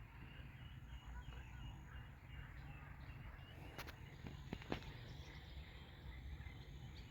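Faint outdoor ambience: a steady low rumble with scattered short, high chirps, and a few sharp clicks a little before five seconds in.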